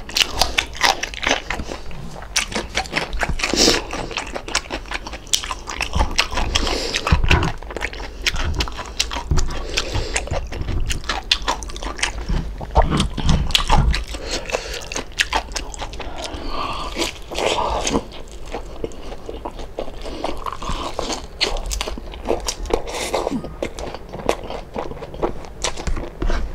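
A person chewing and biting crispy deep-fried pork belly (lechon kawali) close to the microphone, with many quick, sharp crunches.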